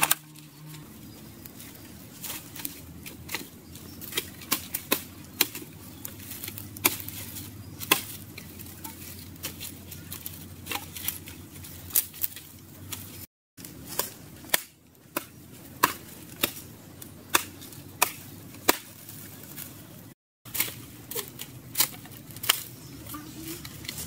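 Small fire of dry leaves and twigs crackling, with sharp, irregular pops about once or twice a second.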